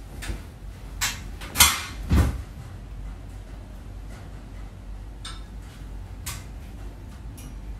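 Handling knocks and bumps: three sharp knocks in the first couple of seconds, then a few faint clicks, over a steady low hum.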